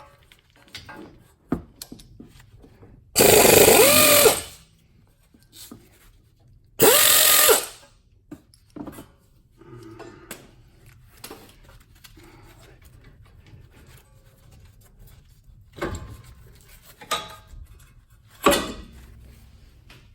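Harbor Freight Earthquake 3/8-inch pneumatic impact ratchet running in two bursts of about a second each, a few seconds apart, its whine bending in pitch, then a shorter burst near the end. Short knocks and clicks of tools and parts being handled in between.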